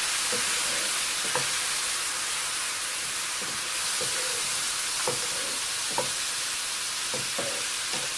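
Chicken and grated carrot sizzling in a frying pan with a splash of water in it, steady and hissing. A wooden spatula stirs through it, scraping and tapping against the pan at irregular moments.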